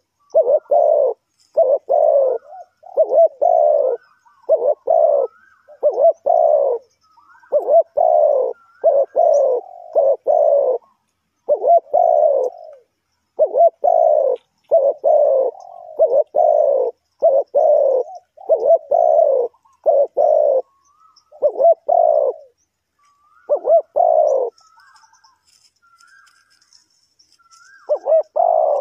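Spotted dove cooing loudly and close, a long run of repeated low hooting coos with a pause of a few seconds near the end before the cooing starts again. Faint high chirps of small birds sound in the background.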